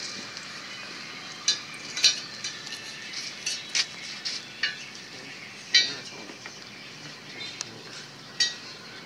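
Knife blade scraping and clinking against a steel car wheel rim as the tyre bead is pried and cut away: a run of short, sharp metal-on-metal scrapes and clicks at irregular intervals, the loudest about six seconds in.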